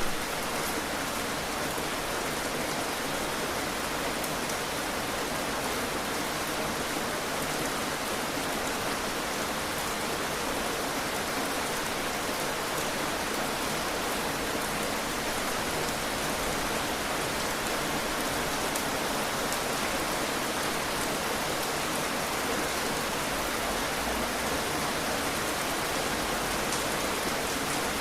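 Heavy rain falling steadily, a dense even hiss with fine patter of drops striking a surface.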